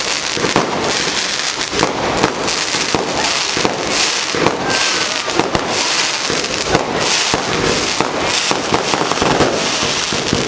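Fireworks display: a dense, unbroken run of pops, bangs and crackling, with hissing surges about once a second.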